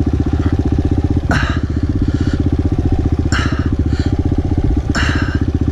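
Kawasaki KLX pit bike's single-cylinder four-stroke engine idling steadily close by, with a short hissy burst about every two seconds.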